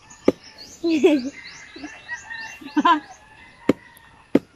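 A few sharp knocks spaced a second or more apart, with a bird calling a rapid series of high falling notes in the first three seconds.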